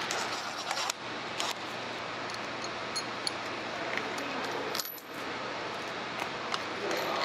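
Light metallic clinks and rattles of an engine's timing chain, sprockets and bolts being handled and removed by hand, over a steady workshop hiss.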